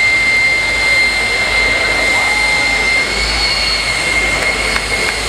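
Jet engine of a jet-powered semi truck running steadily with a high whine over a rushing roar, its pitch edging up slightly about three seconds in.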